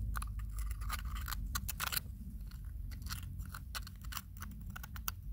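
Irregular small clicks and gritty crunches as gloved hands handle and fit together shards of a broken china vase over loose soil.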